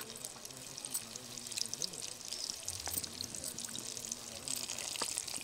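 Gram-flour battered prawn pakodas deep-frying in hot oil, a steady sizzle full of fine crackling, with a few light clicks of the slotted spoon against the pan.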